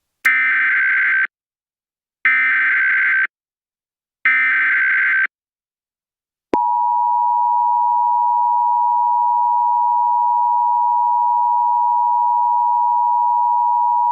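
Emergency Alert System header: three one-second bursts of SAME digital data tones, a buzzy warbling screech, about two seconds apart. About halfway through, the two-tone EAS attention signal starts and holds as a steady dual electronic tone.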